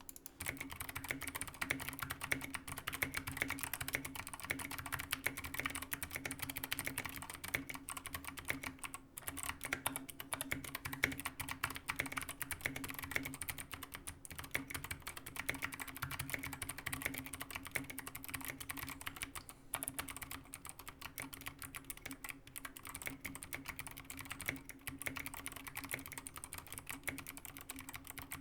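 Continuous fast typing on a GK61XS 60% mechanical keyboard in an aluminium case, fitted with Kailh Box Heavy Pale Blue clicky switches and Maxkey SA keycaps: a dense, unbroken stream of key clicks and clacks.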